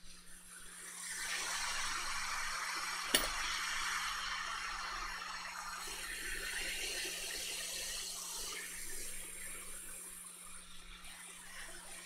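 Hot air rework station blowing at maximum air and maximum heat through its nozzle onto the solder joints of a laptop DC jack to melt them, a steady rushing hiss that swells about a second in. A single sharp click about three seconds in, and a faint steady hum underneath.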